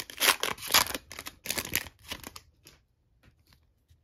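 Foil wrapper of a 2023 Topps Chrome baseball card pack crinkling and tearing as it is ripped open by hand, loud for the first two seconds or so. After that come a few faint ticks as the cards are handled.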